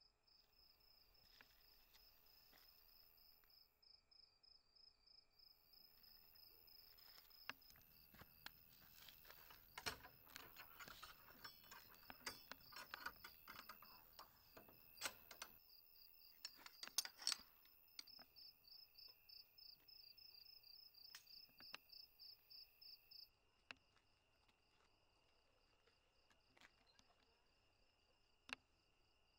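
Crickets chirping in a faint night ambience: a fast, even pulsing high chirp over a steady thin high tone. From about a quarter of the way in to about two-thirds through, scattered clicks and rustles join in, with a few sharper ticks.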